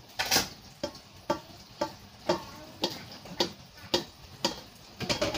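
Metal-on-metal clinks, about two a second, each with a short ring, as a stainless steel colander is tapped against a stainless steel mixing bowl to knock cooked macaroni out of it.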